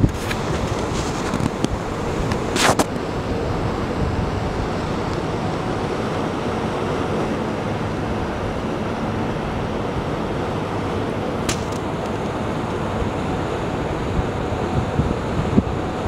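Steady wind rush on the microphone over the low, even hum of a ship under way, with two brief sharp noises, one early and one a little before the end.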